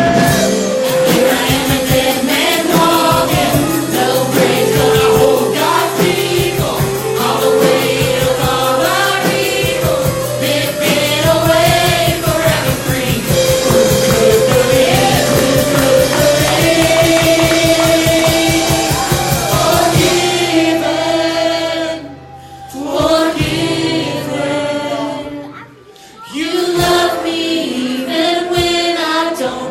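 Worship song in a church service: voices singing a melody over instrumental accompaniment with a steady beat. The beat drops out about two-thirds of the way through, and the music briefly dips twice before the singing carries on.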